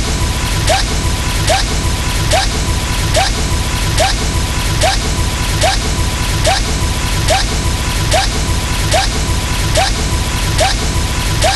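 Looped sound effect: a short rising chirp with a click, repeating evenly about every 0.8 seconds over a steady high tone and a low hum.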